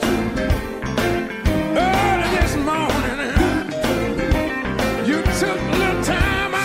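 Gospel music: a singer's voice sliding between notes over a band with drums.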